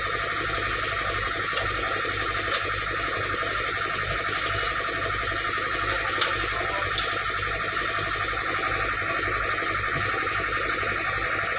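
Excavator's diesel engine idling steadily close by, with a few sharp metal clinks from tools on the track chain, the loudest about seven seconds in.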